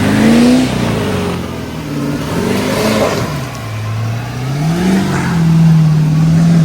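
Pickup truck engine revving hard under load while climbing a steep off-road hill. The revs rise and fall several times, dropping low in the middle, then climbing and holding high near the end.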